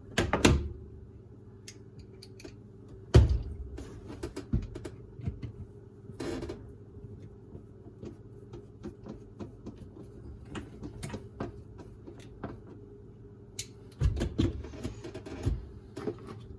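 Plastic dishwasher filter and spray-arm parts being handled and fitted back into the tub: scattered clicks and knocks, a few louder ones about three seconds in, around six seconds and in a cluster near the end, over a steady low hum.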